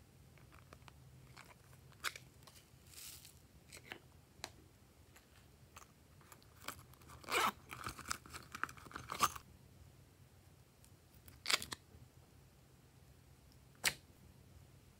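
Small plastic and silicone containers handled and opened over trays of slime: scattered clicks and taps, a denser run of scratchy handling noise about seven to nine seconds in, and two sharp clicks near the end.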